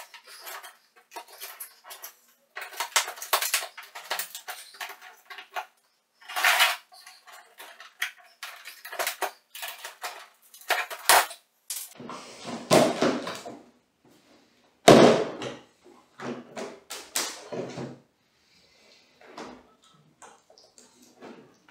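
Hand-opening a plywood shipping crate with metal edging: irregular scraping, clicking and clattering as its corners and lid are worked at, with a heavier knock about fifteen seconds in.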